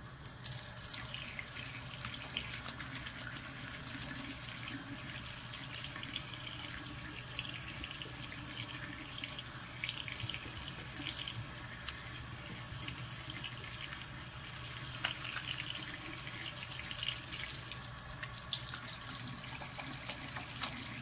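Bathroom sink tap running steadily into the basin, with a few small splashes and clicks.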